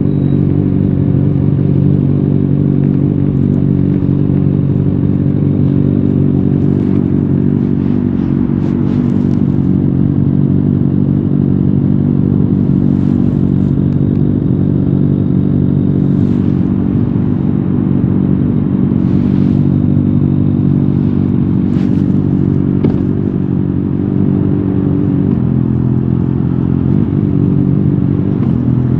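Kawasaki Ninja ZX-6R's 636 cc inline-four running through an Akrapovic exhaust while riding, held at a steady engine speed. Its pitch shifts slightly near the end, with brief bursts of hiss now and then.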